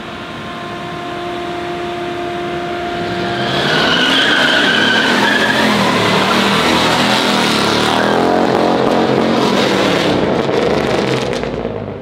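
Car engine revving hard with tires squealing. The steady running gives way about three and a half seconds in to loud revving and screeching, which eases off near the end.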